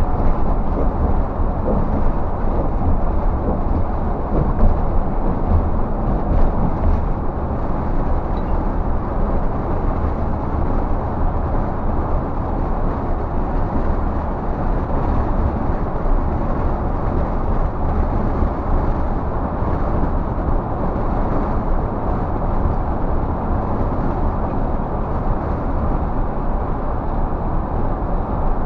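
Scania coach cruising at highway speed, heard from the driver's cab: a steady low engine drone mixed with tyre and road noise, holding an even level throughout.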